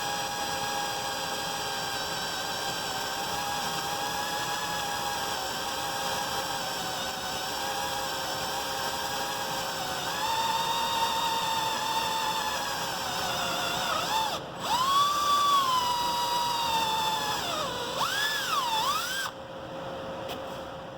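Electric drill boring pilot holes in a snowblower's metal wear edge: a steady motor whine that dips and climbs in pitch several times near the end as the speed changes, then stops.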